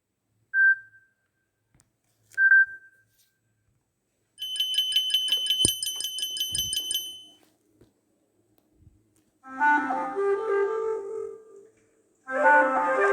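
Samsung Galaxy S10 ringtones and alert tones played one after another. First two short single beeps, then a rapidly pulsing high electronic trill for about three seconds, then two short woodwind-like melodic phrases.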